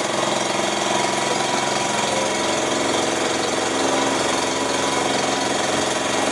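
A boat's engine running steadily at an even speed, with a fast, even chugging.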